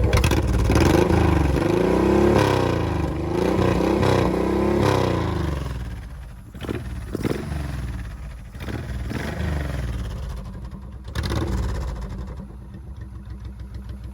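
Honda VTX1800C V-twin motorcycle engine, with a modified intake and exhaust, being revved: about four quick rising-and-falling throttle blips in the first half, then settling lower with a few short single blips.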